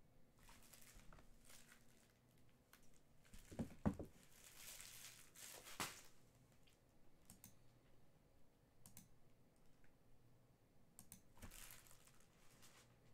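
Faint crinkling and tearing of trading-card pack wrappers, with cards being handled, in short bursts and a few light clicks; two soft thumps about four seconds in.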